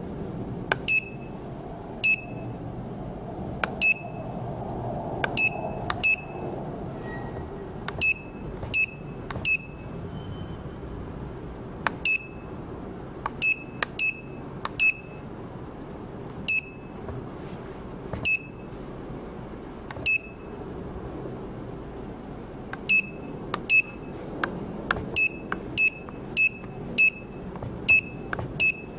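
Touchscreen control panel of an IPL/E-light SHR machine beeping at each stylus tap: a click and a short high beep per touch, spaced irregularly and coming in a quicker run near the end as digits are keyed in. A steady low hum runs underneath.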